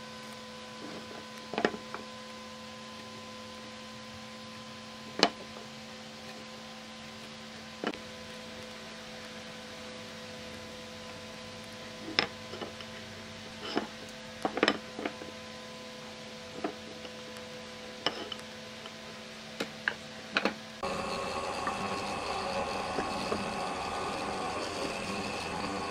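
Scattered sharp taps and clicks of hand tools (steel square, pen and marking gauge) set down and worked on a pine board, over a steady electrical hum. About 21 seconds in, a louder, fuller motor hum sets in, the mortising chisel machine's motor running.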